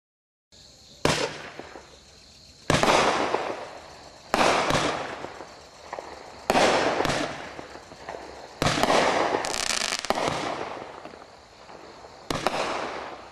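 Consumer 20-shot firework cake (Powder Keg Rockin' Red) firing its shots one after another, about every two seconds: about six sharp bangs, each trailing off over a second or more.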